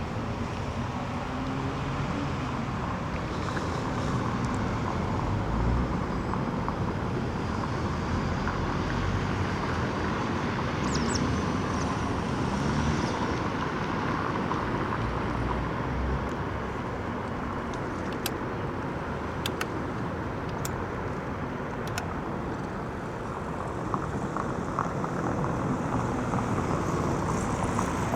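Steady city street traffic noise, cars passing, with a few sharp clicks in the second half.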